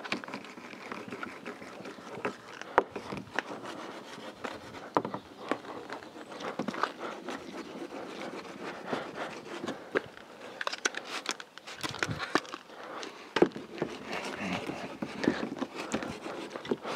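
Clay bar being rubbed over car paintwork around the rear bumper and boot opening: irregular rubbing and scraping with scattered small clicks.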